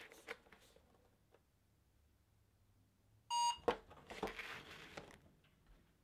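A single short electronic beep about three seconds in, followed by a second or so of rustling handling noise, with a few faint clicks near the start.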